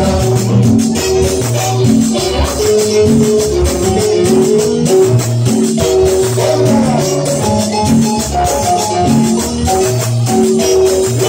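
Cumbia music played loud over a club sound system: a bouncing bass line, a stepping melody line and a steady high shaking rhythm keeping time.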